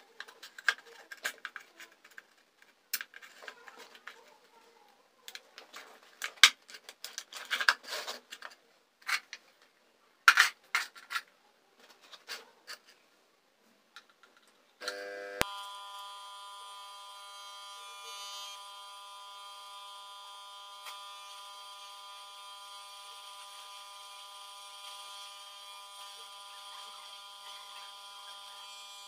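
Clicks and rustling as the hose of a small electric air pump is fitted onto an inner tube's valve. Then a switch clicks about halfway through and the pump starts a steady buzz, pumping air into the tube.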